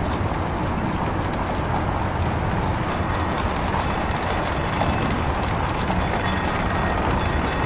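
Steady rumble of a streetcar running along its rails, with light clicks and rattles over it, more of them in the second half.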